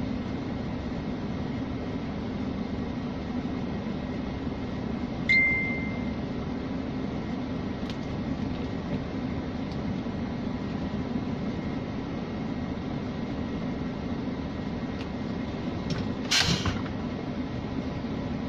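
Scania G460 truck's 13-litre straight-six diesel idling steadily, heard from inside the cab. A click and a short steady beep sound about five seconds in, and a brief loud noisy burst comes near the end.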